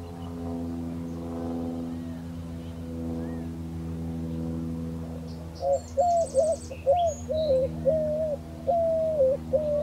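A dove cooing in a rhythmic series of hooting notes, starting about six seconds in, over a steady low hum. A small bird chirps briefly at the same time.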